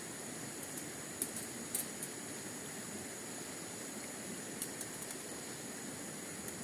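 Light metallic clicks and taps as a small folding stainless-steel box stove and its wire grill grate are handled, two sharper ones a little over a second in, over a steady outdoor background hiss with a high steady hum.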